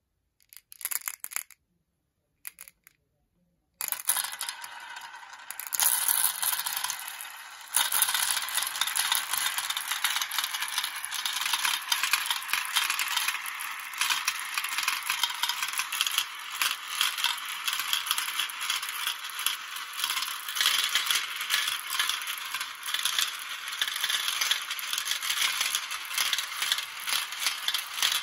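Dozens of glass marbles rolling and clattering through a plastic marble run's funnels and spiral bowls. A few separate clicks come first, then from about four seconds in a dense, continuous rattle.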